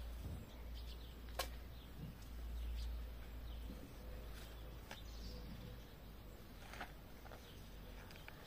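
Quiet outdoor ambience: a steady low rumble, with a few sharp clicks or taps about a second and a half, five and seven seconds in, and faint bird chirps.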